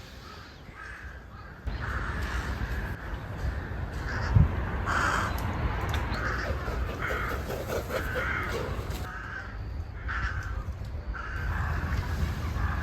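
Crows cawing over and over, a string of short harsh calls about a second apart. A steady low rushing noise sets in about two seconds in.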